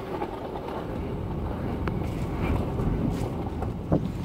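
Hurricane wind and driving rain, a steady rushing noise with a low rumble of wind on the microphone. A few sharp knocks cut through it, the loudest near the end.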